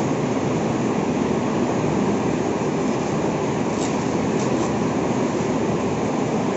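Steady, loud drone of machinery running in a workshop, with a few faint crackles of plastic sheeting being handled about four seconds in.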